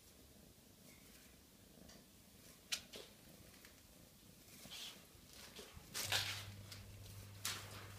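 Broom bristles brushing and knocking against the bars of a wire pet cage as a kitten bats at the broom: faint scratchy rustling, a sharp click about three seconds in, and louder brushing rattles around six and again near seven and a half seconds.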